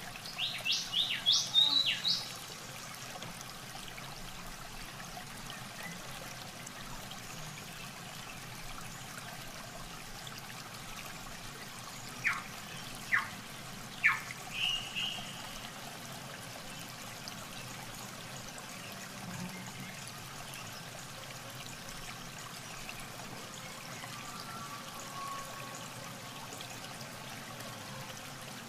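Steady trickling and sloshing of shallow muddy water around bare legs wading and groping in a mud pool. A quick run of high, falling bird chirps comes at the start, and a few short sharp calls come about halfway through.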